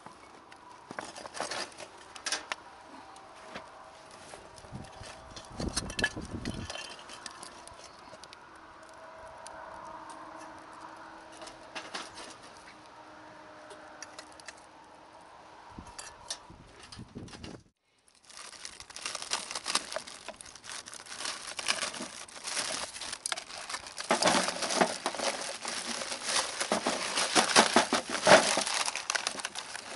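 Crinkling and rustling handling noise made of many small clicks. It is sparse at first, breaks off briefly past the middle, then comes back denser and louder.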